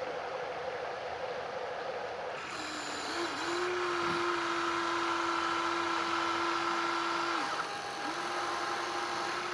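Small electric motor of a radio-controlled model truck or excavator whining at a steady pitch. It starts about a quarter of the way in, stops briefly near the end, then starts again.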